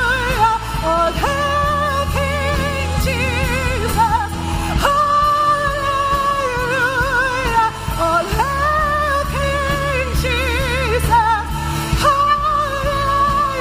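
Live contemporary worship music: a singer holds long, wavering notes and slides between pitches over a band with a sustained low bass.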